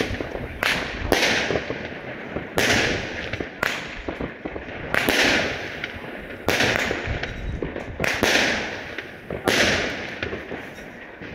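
Consumer firework cake (battery) firing a sequence of shots, about eight in all, one every second or so. Each is a sharp bang that fades away over about a second.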